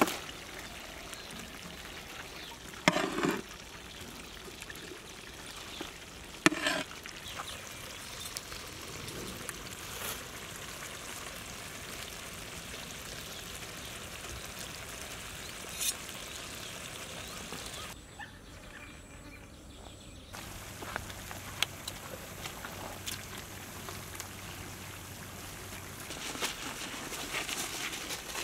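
Cooking in a large pot of thick masala gravy: a steady sizzling simmer as marinated whole chickens are tipped in, with a few sharp knocks and plops.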